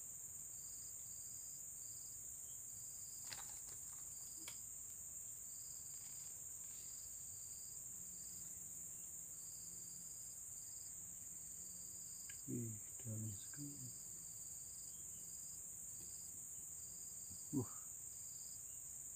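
Insect chorus: a steady high-pitched drone with a chirp repeating about twice a second just below it. A few brief low murmurs and a single short knock near the end.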